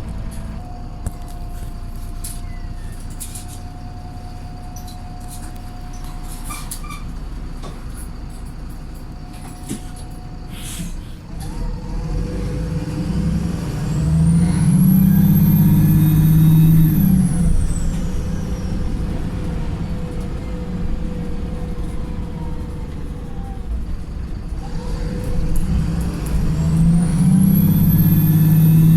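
Wright Pulsar single-deck bus's diesel engine, heard on board: for about eleven seconds it runs steadily with rattles and clicks, then it pulls hard twice, about halfway through and again near the end. Each time the engine gets louder with a tired thrash and a high whine that rises and falls.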